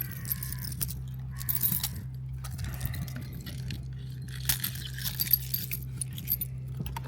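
Light metallic jingling and clinking, in scattered bursts, over a steady low hum.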